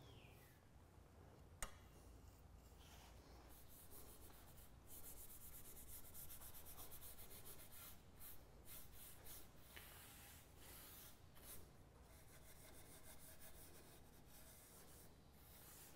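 Faint swishing and rubbing of a bristle brush spreading oil finish over cedar slats, with a single light tap about a second and a half in.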